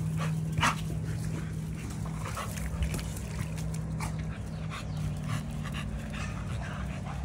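A dog whimpering and panting, with a few short sharp cries, over a steady low hum.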